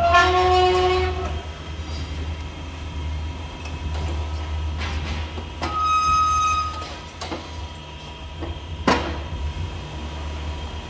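Tire-shop work noise: a steady low hum with a few sharp metal knocks. A sustained pitched tone lasting about a second starts with the first knock and is the loudest sound, and a higher tone sounds briefly about six seconds in.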